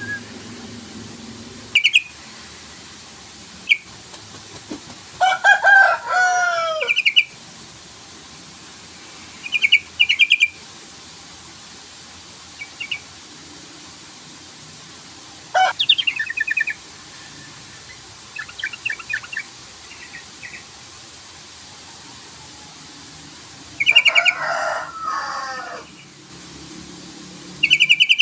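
Sooty-headed bulbul (trucukan) giving its rival-challenge calls: short bursts of bubbly chattering notes separated by pauses of a few seconds. Two bouts are longer, with slurred notes that fall in pitch.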